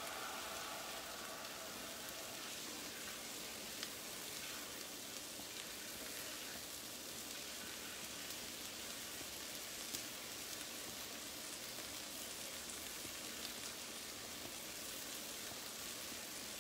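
Turkey bacon sizzling on a stovetop griddle: a faint, steady frying hiss with a few small pops.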